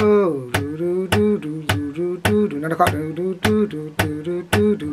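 Steel-string acoustic guitar fingerpicked in a steady pattern, with sharp plucked notes a little under twice a second, and a man's voice singing the melody over it.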